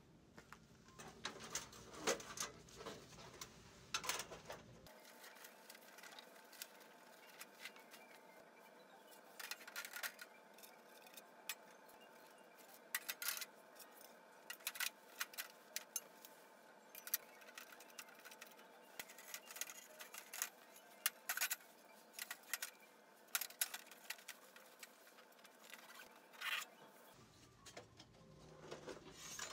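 Sheet-steel plates of a handmade flat-pack camping stove clinking and knocking together in irregular sharp clicks as they are taken apart and packed into a fabric carry bag.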